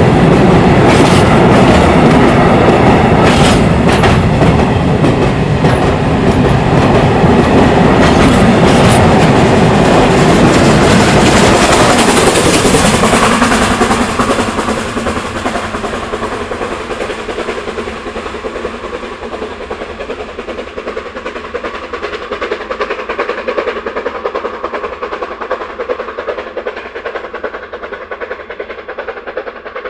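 A train rolling past, its wheels clicking over the rail joints; loud for about the first fourteen seconds, then fading steadily as it moves away.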